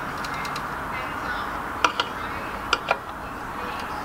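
A few sharp clicks and taps from hands fitting a hand-forged steel hose hanger onto a timber fence, over a steady background hiss. One comes about two seconds in, then two close together a little later.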